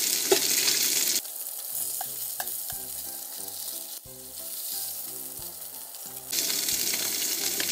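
Mullet fillets sizzling as they shallow-fry in hot olive oil. About a second in the sizzle drops to a much quieter hiss with a few light clicks, and it comes back loud near the end.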